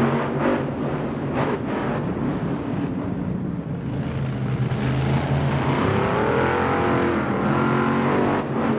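1,500-horsepower monster truck engines running hard at racing speed, the pitch rising and falling as the throttle is worked. A few sharp knocks come in the first second and a half.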